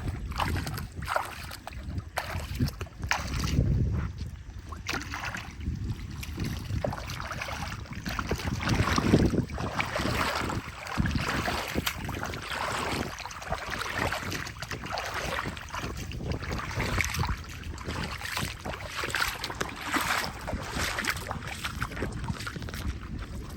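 Water sloshing and splashing in irregular, uneven strokes, with wind buffeting the microphone as a low rumble.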